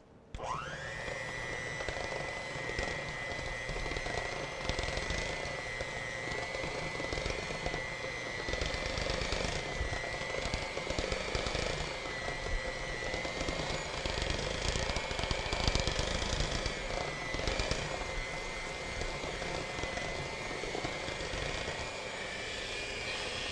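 Electric hand mixer whirring up with a quick rising whine, then running at a steady high pitch as its beaters work through thick chocolate frosting in a bowl; it switches off at the end.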